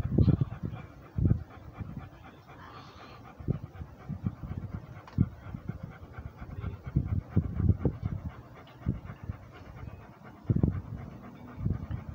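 Rhodesian ridgeback panting with its mouth open, in uneven bursts of breath.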